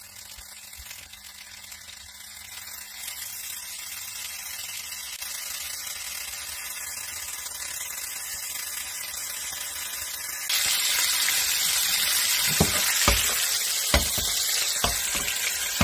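Olive oil sizzling around stuffed tomatoes frying in a pan, a steady hiss that builds gradually louder. About ten seconds in it jumps louder, and a few light knocks follow near the end.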